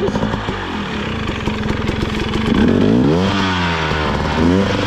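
Dirt bike engine running, then revved up and down twice, as a bike stuck in the snow tries to get moving.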